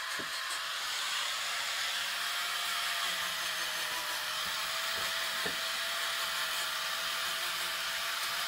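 Handheld angle grinder running steadily while it sands and shapes a wooden carving: a steady, slightly wavering whine over the hiss of abraded wood.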